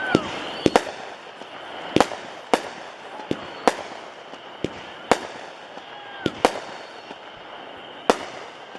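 Cutting Edge 'Coiled' 16-shot 200-gram repeater cake firing: a string of sharp bangs from its shots and breaks, about a dozen of them, irregularly spaced from half a second to a second and a half apart.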